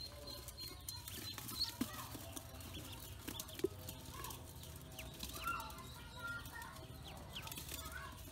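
A group of ducklings peeping while they feed from a metal bowl, many short overlapping peeps throughout. A few sharp taps cut through, the loudest about three and a half seconds in, as beaks strike the bowl.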